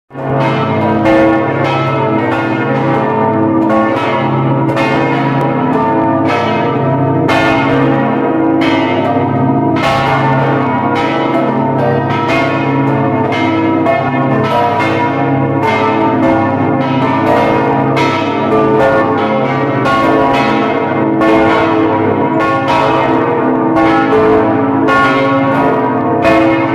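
Several large bells of the St Mark's Square bell tower ringing together in a loud, continuous peal. A new strike comes about once a second, each one ringing on under the next.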